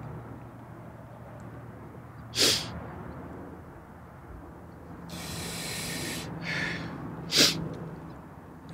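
A man breathing sharply through his nose: two short, loud snorts, with a longer breathy rush between them.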